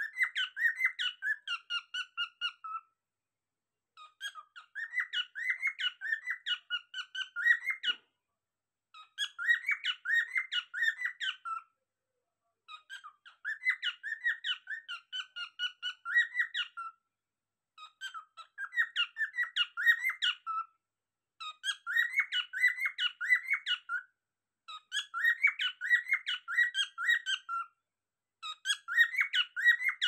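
Cockatiel whistling the same song phrase over and over, about eight times: each phrase a quick run of short chirpy notes that ends on a lower note, with a pause of about a second between phrases.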